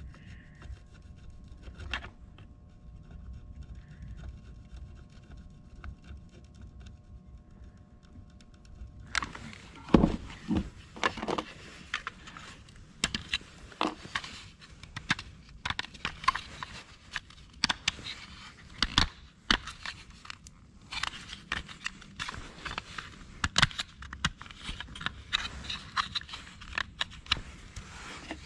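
A soldering gun hums faintly with a few thin steady tones while its tip melts a plastic switch panel, and cuts off suddenly about nine seconds in. Then comes a long irregular run of scrapes, clicks and knocks as the hard plastic panel and parts are handled and test-fitted.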